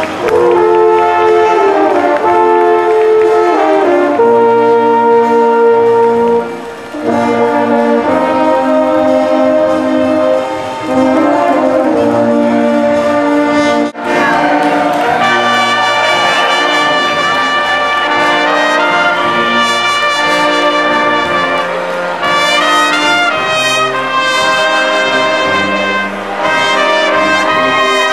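German oompah brass band (Blaskapelle) playing, with tuba, euphonium and baritone horn in held chords. The music breaks off sharply about halfway through and a brighter passage with more high notes follows.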